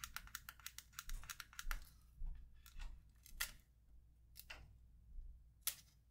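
Small sharp clicks and scrapes of tweezer tips and fingertips on a laptop battery's plastic casing and a strip of adhesive tape, as the tape is picked at and peeled. A quick run of clicks comes first, then a few scattered single clicks.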